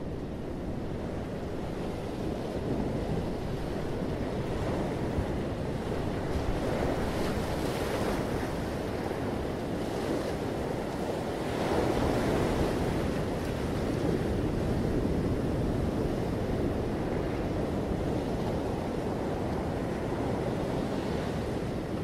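Sea surf washing in on a rocky shore, a steady rush that swells louder twice, about a third of the way in and again around the middle, with wind buffeting the microphone underneath.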